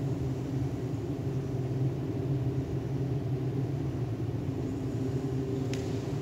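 Steady low mechanical hum from an indoor pool's equipment, with a held drone and several fainter tones above it. Two brief clicks near the end.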